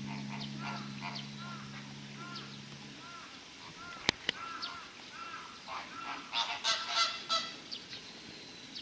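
A flock of flamingos calling: many short, repeated calls that come thicker and louder about six seconds in. A single sharp click about four seconds in. Background music fades out during the first three seconds.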